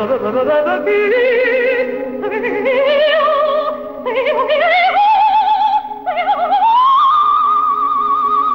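A female soprano sings with wide vibrato, climbing step by step through a phrase to a high note held over the last third. Sustained instrumental accompaniment plays underneath.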